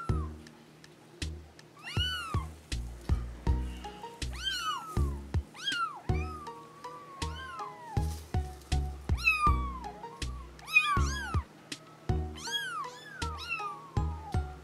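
Several young Bengal kittens meowing over and over, high-pitched meows that rise and then fall, often overlapping one another, one drawn out longer about six seconds in. Background music with a steady low beat runs underneath.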